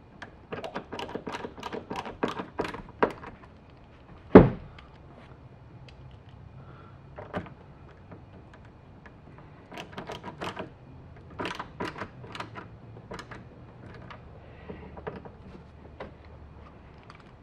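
A replacement sun visor being fitted into its mounting in a truck cab: runs of small clicks and knocks from handling the visor and bracket, with one loud thunk about four seconds in.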